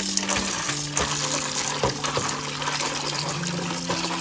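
Tap water running into a stainless steel bowl while a hand swishes dried kamias in it, with background music of long held notes underneath.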